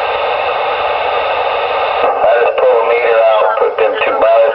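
CB radio speaker hissing with static, then a thin, distorted voice comes through the radio about two seconds in.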